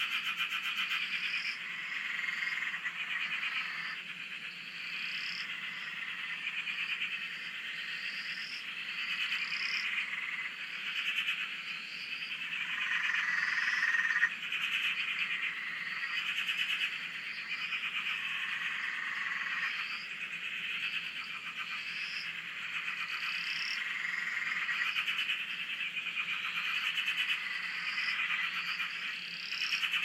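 Many frogs calling together in a dense, continuous chorus of fast pulsing trills that swells and fades in places.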